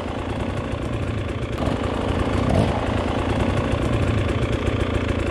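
Dirt bike engine running steadily at low revs.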